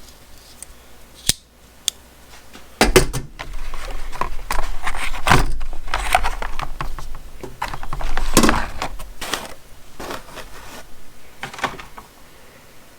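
Clicks, scrapes and rustling of hand tools being handled: two sharp clicks in the first two seconds, then several seconds of denser clattering and scraping, then scattered clicks. The tools include a folding lockback utility knife with a push-button blade release.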